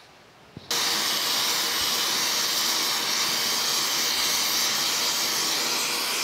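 Gas torch flame hissing steadily as it heats a cast-iron bearing housing and its shaft before babbitt is poured. The hiss starts suddenly under a second in.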